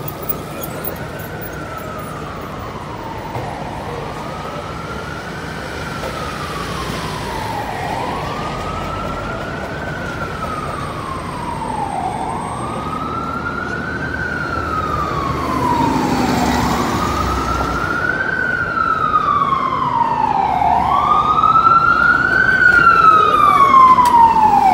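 Emergency-vehicle siren on a slow wail, its pitch rising and falling about every four seconds and growing steadily louder as it approaches, over city traffic noise.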